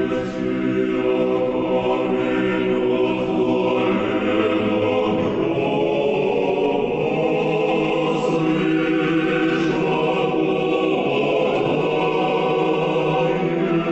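Choir singing a slow Orthodox church chant in long held chords.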